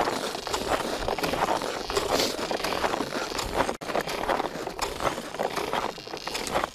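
Snowshoes crunching on packed, groomed snow as several people walk, a rapid run of footsteps. The sound drops out for an instant just under four seconds in.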